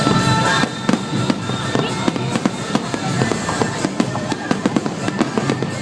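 Fireworks bursting and crackling in rapid, dense succession.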